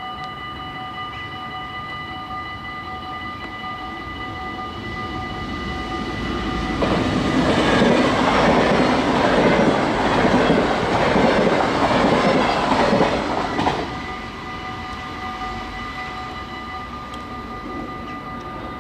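Level-crossing warning bells ringing steadily while a yellow-and-blue NS double-deck electric train passes. The train's noise swells from about seven seconds in and cuts off sharply near fourteen seconds, and the bells keep ringing after it has gone.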